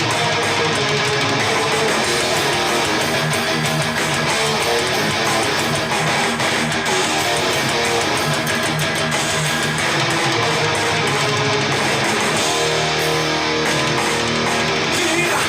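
Guitar-led music played through S90e (35AC-012) loudspeakers fitted with Alphard midrange and tweeter drivers, picked up by a recorder's microphone.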